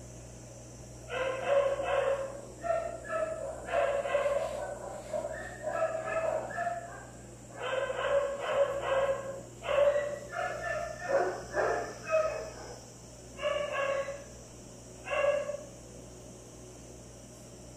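A dog yipping and whining in quick runs of short, high-pitched calls with pauses between, starting about a second in and stopping a couple of seconds before the end.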